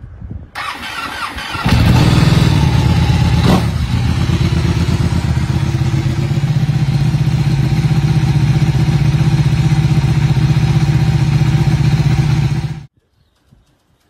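Ducati Panigale 1299's Superquadro L-twin with an Akrapovič exhaust, cold-started: the starter cranks for about a second before the engine catches, rises briefly in pitch once, then idles steadily. The sound cuts off abruptly near the end.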